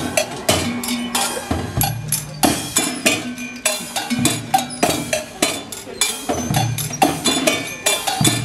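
The Cymbalobylette, a pedal-driven mechanical music machine of drums, cymbals and gongs, playing as it is pedalled. It makes a dense rhythmic clatter of knocks and metallic hits over a low drum thump about once a second.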